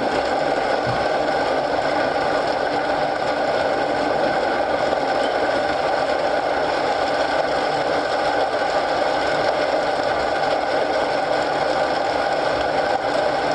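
Steady rain and fireplace ambience: an even, unbroken rush of rain noise with the fire mixed in beneath it.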